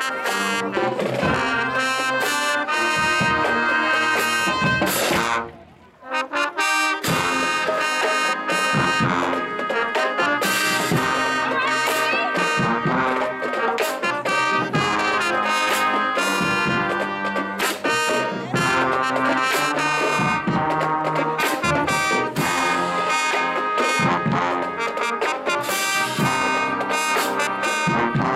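Marching band brass section, trombones and trumpets, playing loudly over percussion hits. About five and a half seconds in the band cuts off for half a second, then comes straight back in.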